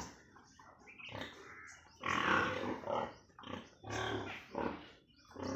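Pigs calling on a farm: a string of irregular, uneven calls, the longest and loudest about two seconds in, with shorter ones after it.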